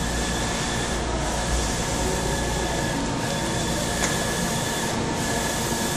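Wide-format eco-solvent printer printing on transfer film, its print-head carriage sweeping back and forth. It makes a steady mechanical whir with a slight regular change about every two seconds.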